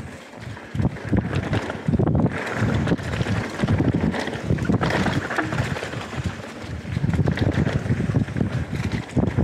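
Wind buffeting the microphone of a camera on a Canyon Spectral 125 mountain bike descending a leaf-covered dirt trail at speed, mixed with the tyres rolling over the ground and the bike rattling over bumps. The noise comes in uneven gusts with scattered knocks.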